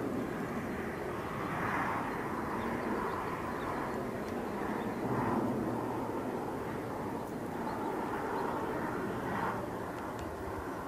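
Airbus A400M's four turboprop engines running as it flies low on approach: a steady aircraft drone that swells and eases a little.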